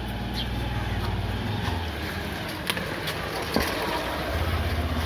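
Traffic noise with a low engine hum that fades out and comes back, and a few sharp clicks.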